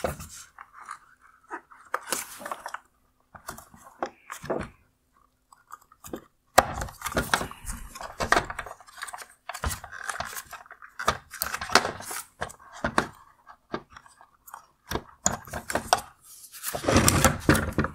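Hard plastic clicking, creaking and crunching in irregular bursts as the AFS motor of a Porsche Taycan LED headlight is twisted to unlock it and worked out of its plastic bracket. The handling is loudest near the end.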